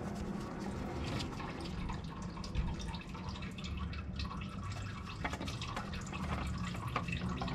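Engine oil dripping into a drain pan as small irregular ticks, mixed with faint scrapes of a gloved hand working the oil filter loose in a cramped engine bay, over a low hum.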